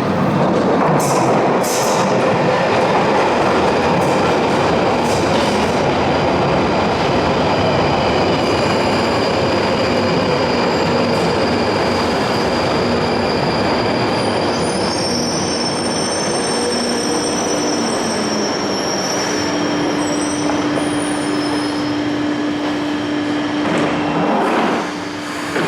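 London Underground 1995 stock tube train running, a loud steady rumble of wheels on rail. From about halfway through, high-pitched wheel squeal comes in and a steady lower tone joins it.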